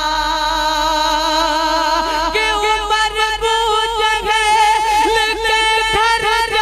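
A man sings a naat (devotional poem) into a microphone, holding one long note and then moving into a new phrase just over two seconds in, with wavering, ornamented notes.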